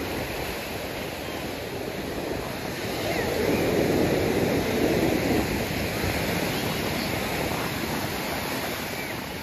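Ocean surf breaking and washing up the sand, a steady rush that swells louder for a couple of seconds in the middle.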